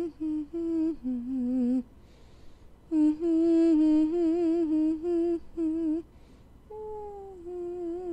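A voice humming a slow tune with a wavering pitch, in short phrases; it breaks off about two seconds in and again about six seconds in, and the last phrase opens with a falling note.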